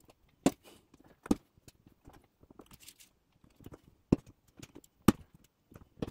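A blade cutting slowly through a small plastic part, making sharp clicks at irregular intervals, about five loud ones with fainter ticks between.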